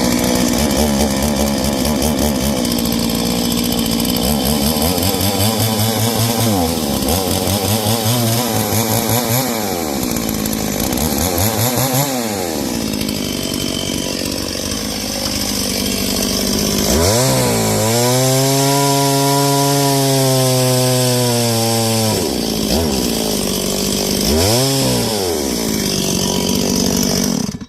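Noker 381 two-stroke chainsaw running just after a cold start, slightly flooded from one too many primer pumps. It is revved up and back down several times, held at high revs for about five seconds about two-thirds of the way through, then stops suddenly at the end.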